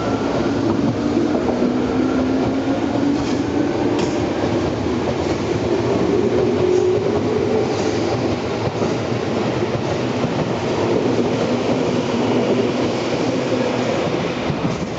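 Tobu 10050-series and 10030-series electric commuter train pulling out of a station and gathering speed, its motor whine rising slightly in pitch over a steady rumble, with a few clicks from the wheels over the rails.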